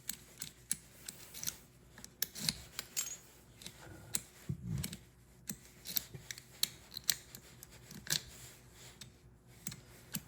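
Irregular sharp metallic clicks and taps of a Ford door lock cylinder and its small parts being handled and pushed together during reassembly.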